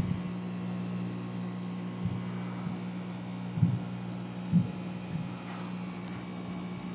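Steady low electrical hum from aquarium equipment, with two soft knocks a little past the middle.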